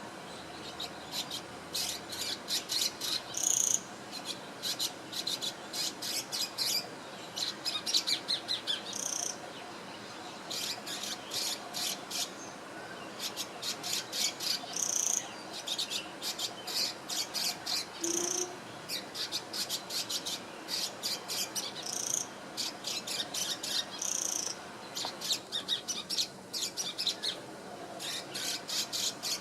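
Small swiftlet-like bird chirping in rapid trains of sharp, high chirps, a burst of a few seconds at a time with short pauses between, several bursts ending on a brief higher note.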